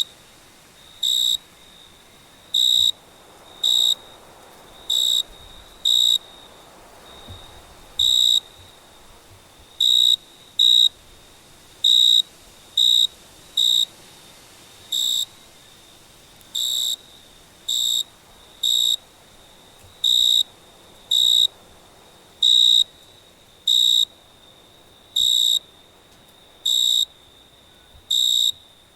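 A cricket chirping: short, high chirps on one steady pitch, repeating at uneven intervals of roughly one a second, over a faint background hiss.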